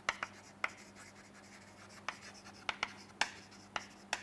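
Chalk writing on a chalkboard: a string of short, sharp taps and scratches at irregular intervals as a word is written, over a faint steady low hum.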